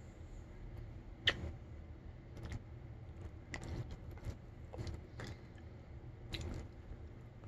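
A dog shifting and licking close to the microphone: scattered soft clicks and smacks, the sharpest about a second in.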